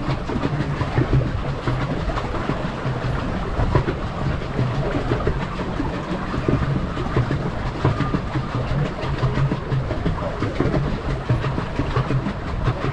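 Pedal boat's paddle wheel churning and splashing water close by, with a steady clatter from the pedal drive as the boat is pedalled along.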